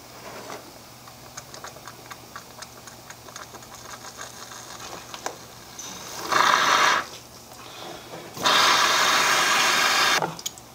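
A/C flush gun on shop compressed air, blasting flush solvent and air through an A/C system component: two hissing blasts, a short one about six seconds in and a longer one of nearly two seconds near the end. Before them there is light, scattered clicking and rattling.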